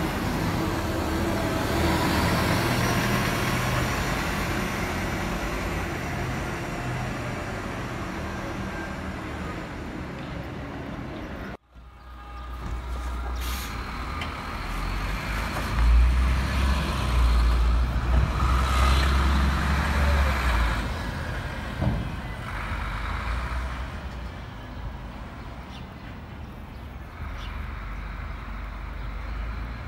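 Buses driving past at the roadside: a coach passes, then after a sudden cut a city bus moves off with a deep engine rumble that is loudest a few seconds after the cut, with short hisses.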